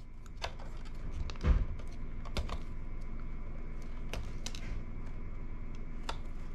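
Small, irregular clicks and snips of hand wire strippers stripping the insulation off electrical cable cores, with a soft knock about a second and a half in.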